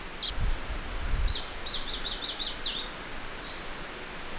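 A bird singing in the trees: a quick run of high, sharply falling notes about a second in, then a short phrase near the end, over steady outdoor hiss. A low rumble, like wind on the microphone, sits under the first second or so.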